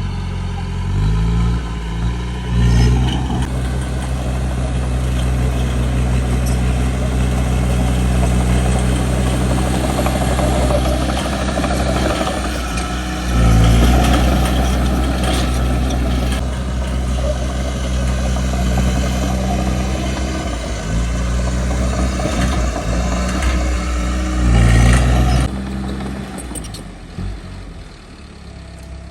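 Heavy diesel engine of earthmoving equipment running under load. It revs up about two seconds in, surges twice more, and drops back and quietens for the last few seconds.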